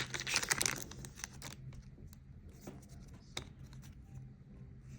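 Foil wrapper of a Pokémon trading-card booster pack crinkling and tearing for about a second and a half, then much quieter, with a couple of light clicks from the cards being handled.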